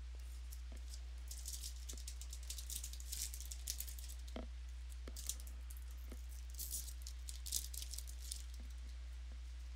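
Trading cards and their packaging being handled: repeated crisp rustling and light clicks as cards are slid and flipped through, over a steady low electrical hum.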